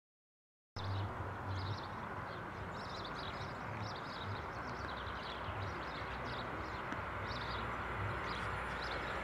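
After a moment of silence, small birds chirp repeatedly over the steady rumble of a distant class 152 electric locomotive hauling a container freight train.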